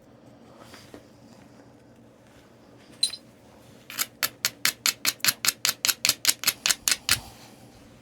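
A single sharp tap, then a quick even run of about seventeen sharp clicks, roughly five a second, as a knapping tool taps at the edge of a piece of Tallahatta stone.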